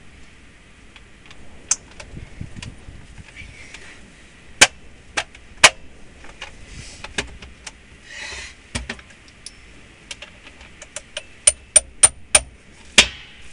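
Sharp metal clinks and clanks of hand tools against the hub hardware of a John Deere 4840's dual wheel as the dual is unbolted. They come singly at first, then in a quick run of about six near the end.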